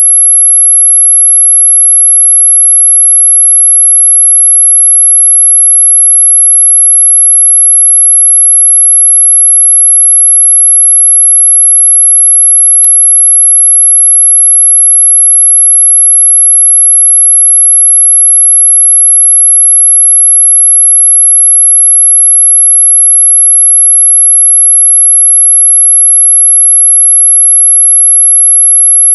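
A steady, high-pitched pure electronic tone of about 11 kHz, loud and unbroken: a mosquito-repellent tone sold as ultrasonic.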